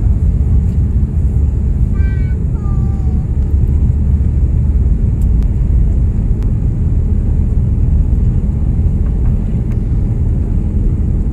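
Loud, steady low rumble of a Boeing 787-9's engines and rushing air, heard inside the cabin from a window seat beside the engine.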